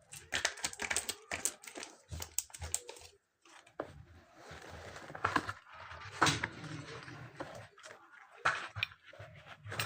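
Irregular clicks, taps and light rattles of small hard parts being handled, with a soft rustle in the middle: hands working on an MP-654K CO2 air pistol.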